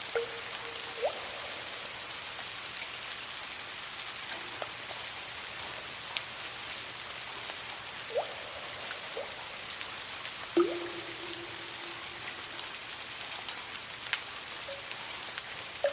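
Steady hiss of soft rain, with occasional water drips falling into water, each a short plink that rises in pitch. The loudest drip comes about ten and a half seconds in and rings on briefly.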